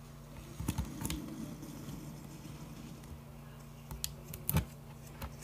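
ASMR handling sounds on a small hard black object: a few sharp clicks and taps with a short scratchy rustle about a second in, then two more clicks about four seconds in.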